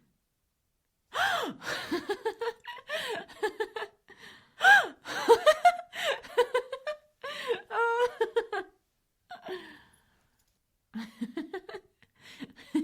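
A woman giggling and laughing in quick runs of high-pitched pulses, starting about a second in. The laughter breaks off around nine seconds in and comes back as a few softer, lower giggles near the end.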